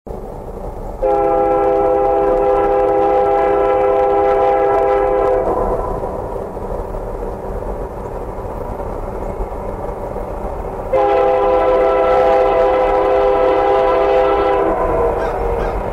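Union Pacific freight locomotive's multi-note air horn sounding two long blasts for a road grade crossing. The first comes about a second in, the second about eleven seconds in. A steady low rumble runs underneath.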